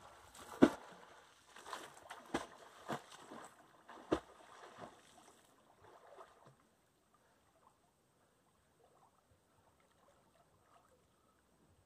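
Water splashing in irregular strokes, about one every half second to a second, as someone moves in the water. After about five seconds it stops and all goes nearly silent.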